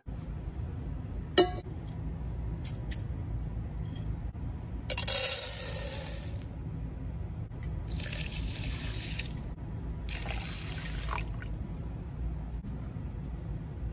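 Dry rice poured from a plastic container into a stainless steel pot, a short rattling pour about five seconds in; then water poured into the pot from a clear cup in two pours of about a second each. A single knock comes about a second and a half in, and a steady low rumble runs underneath.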